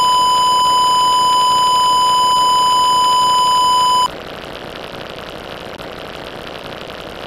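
A steady electronic beep tone at about 1 kHz, the standard censor bleep, held for about four seconds and cutting off suddenly. A steady hiss carries on after it.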